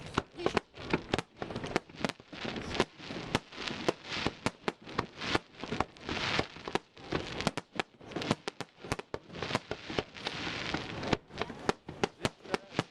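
Fireworks going off: a rapid, irregular run of sharp bangs and crackling, several a second, with hissing in between.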